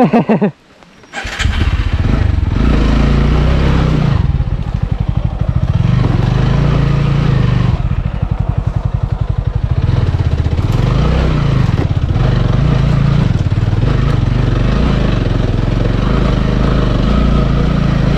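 Motorcycle engine running hard, its revs rising and falling again and again. It starts abruptly about a second in, after a short loud burst.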